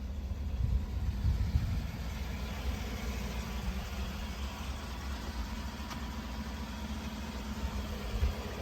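Pickup truck engine idling, a steady low rumble, with wind buffeting the microphone.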